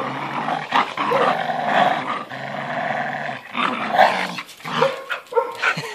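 Dogs, an American Staffordshire terrier puppy and an older Staffordshire bull terrier, growling during a tug-of-war over a toy. The growl is long and unbroken for the first few seconds, then comes in shorter, broken snatches near the end.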